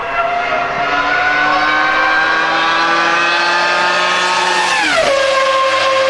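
Formula 1 V10 engine at full throttle, its high-pitched note climbing steadily through the revs, then dropping sharply at a gear change about five seconds in and holding a lower steady note.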